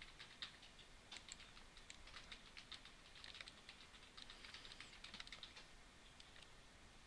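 Faint, irregular clicking and tapping of a computer keyboard and mouse.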